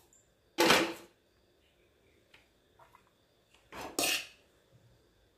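Stainless-steel kitchenware clattering: two short metal-on-metal clatters, about half a second in and again around four seconds, with a few faint clicks between. These are steel utensils, a pan and a steel lunch box knocking together as cooked rice is served.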